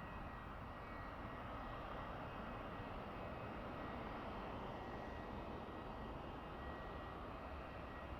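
Faint, steady engine noise of a distant jet airliner, with a thin steady whine.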